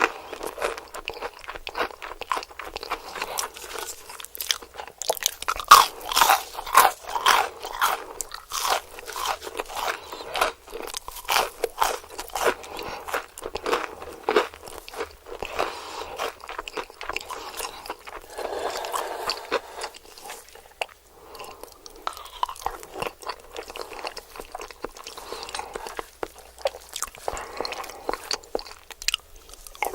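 Crunching bites and chewing of crispy KFC fried chicken, a steady run of crackly crunches that is densest in the first half.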